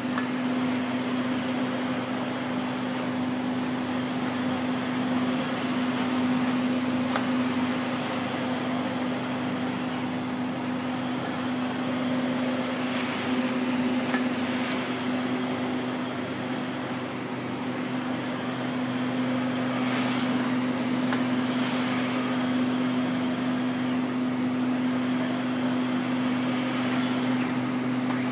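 Wide-format digital printer running while it prints onto fabric: a steady hum with a strong low tone under a bed of fan noise, with a few faint brief swishes now and then.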